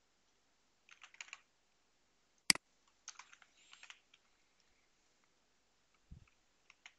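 A few computer keyboard keystrokes and clicks, in small clusters, with one sharp click about two and a half seconds in that is the loudest sound.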